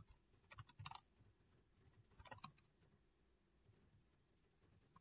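Faint computer keyboard typing: two short runs of key clicks, one about half a second in and another a little after two seconds in.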